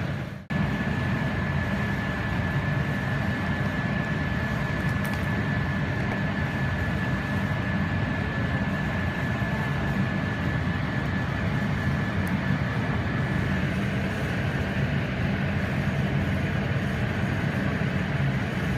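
Steady low mechanical rumble with a faint, thin high-pitched whine above it; the whine steps down slightly in pitch about three-quarters of the way through. The sound drops out for a moment just after the start.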